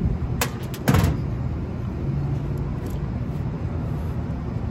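Steady low machine hum, with two sharp knocks: a light one about half a second in and a louder one about a second in.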